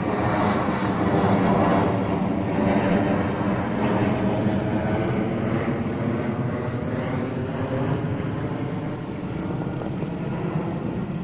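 Airbus A319 jetliner passing overhead after takeoff: loud jet engine noise with a steady hum of tones through it, slowly fading as the aircraft flies away.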